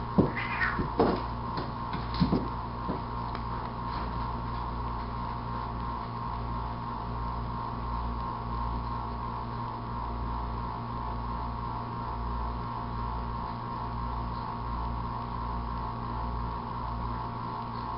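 Steady electrical hum, with a few short, sharper sounds in the first three seconds.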